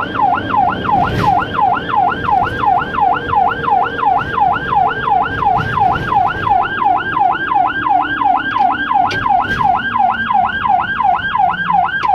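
An ambulance's own electronic siren in a rapid yelp, sweeping up and down in pitch about three to four times a second, heard from inside the cab over low engine and road noise.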